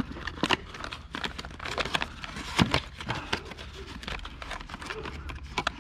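Cardboard packaging handled by a gloved hand: irregular crinkles, rustles and small taps as a new Yamaha oil filter is pulled out of its box.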